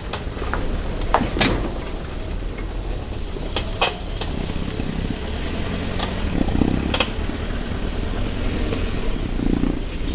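A motor vehicle's engine running steadily, with several sharp clicks or knocks over it.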